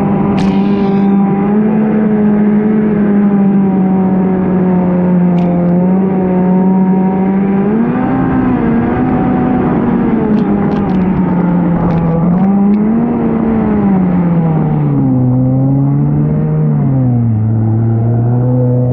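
Stand-up jet ski engine running hard at speed, holding a steady pitch with small rises and dips as the throttle is worked. It drops in pitch over the last few seconds as the throttle comes off and the ski slows.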